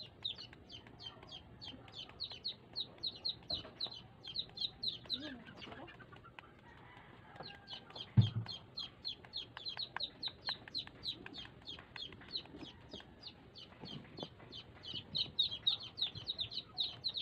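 Chickens calling in the background: a fast, steady run of short high notes, several a second, that pauses for a moment about six seconds in. A single low thump about eight seconds in is the loudest sound.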